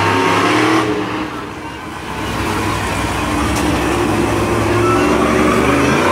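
Monster truck engine revving hard, easing off about a second in, then climbing back up and held high.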